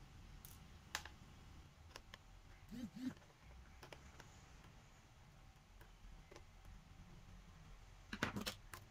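Faint, scattered plastic clicks and taps as a small hand tool works along the edge of an Acer Aspire 3 laptop's plastic bottom cover, with a quick run of several clicks near the end.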